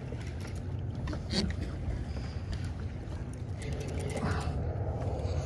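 Choppy water slapping against a kayak hull over a steady low rumble, with scattered light clicks and knocks.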